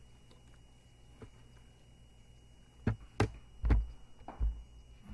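Quiet room tone, then four dull thumps in the second half, each short, with most of their weight low down, spaced about half a second to a second apart.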